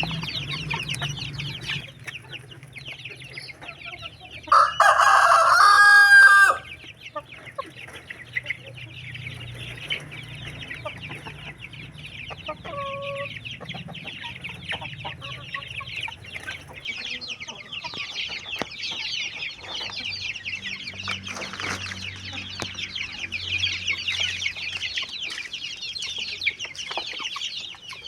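A flock of chickens clucking and chattering without a break, with a rooster crowing loudly once for about two seconds, starting some four to five seconds in.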